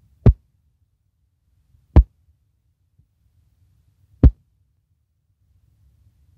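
Three loud, brief thumps about two seconds apart, over a faint low rumble.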